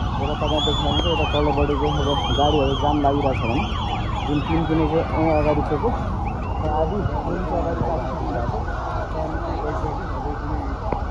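A marching crowd shouting and chanting together, with high wavering tones sounding over the voices during the first few seconds.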